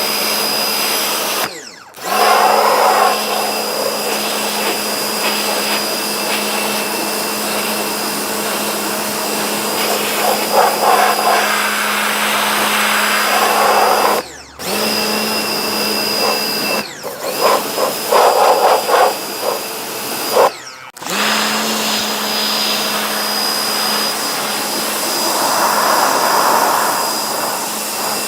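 Vacuum cleaner running steadily with a constant hum and a thin high whistle. It cuts out abruptly a few times, and stretches of louder, rougher noise come and go over it.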